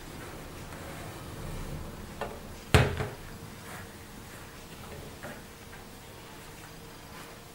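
A mixing bowl being lifted off an oven's wire rack gives one sharp knock nearly three seconds in, with a smaller knock just before it. A cloth dish towel rustles faintly around them.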